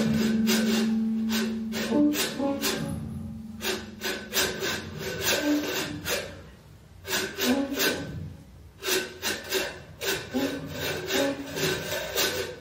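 Free improvisation by a small band of horns, drums, guitar, keyboard and voice: a long held note stops about five seconds in, giving way to sparse short notes and noisy clicking strokes.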